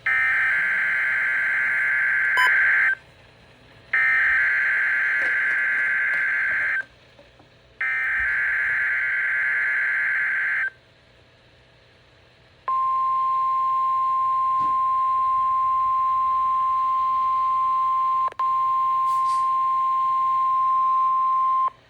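NOAA Weather Radio weekly test signal: three buzzing bursts of SAME digital alert header data, each about three seconds long with short gaps between them. After a pause of about two seconds comes the steady single-pitch 1050 Hz warning alarm tone, held for about nine seconds with a momentary break near its end.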